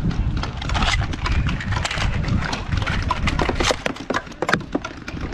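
Hurried footsteps of a player moving over rough ground and brush, with gear knocking, in an uneven run of clicks and thuds over a low rumble.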